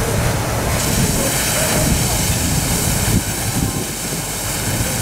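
Live-steam 7¼-inch gauge model of an RhB G 4/5 locomotive running on a test stand, its driving wheels turning freely in the air, with a steady loud hiss of steam escaping beneath it.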